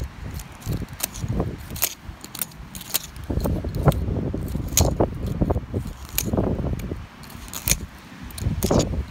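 Metal screwdriver scraping and jabbing into dry, sandy, pebbly soil: irregular gritty scratches and small clicks of grit and stones, about two to three a second.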